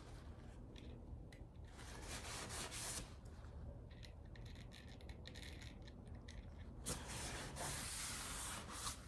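Hand sanding: sandpaper rubbed in short, scratchy strokes over a laminate drawer front to smooth a CA-glue repair. It comes in a few spells with pauses between, and is loudest near the end.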